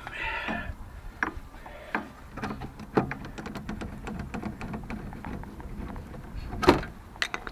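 Hand tools clinking and knocking on metal during suspension work: a quick run of small clicks in the middle and one sharp knock near the end.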